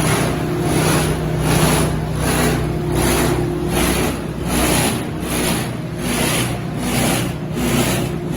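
Production-line machinery running: a steady mechanical hum with a regular swishing pulse about twice a second.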